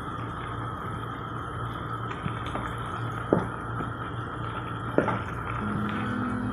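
Broth with chicken feet and glass noodles bubbling at a boil in a frying pan while a wooden spoon stirs it, with two sharp knocks of the spoon against the pan about three and five seconds in.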